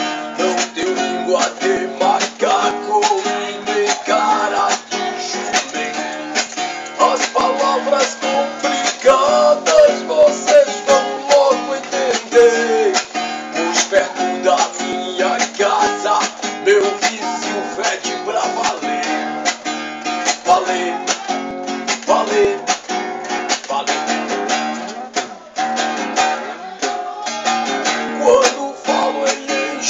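Music: strummed acoustic guitar with a melody line above it, in a passage without singing. The sound is thin and narrow, cut off at both the high and the low end.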